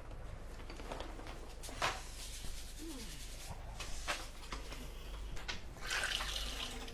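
Wind blowing steadily, with a few sharp knocks and rattles at irregular intervals and a louder gust near the end.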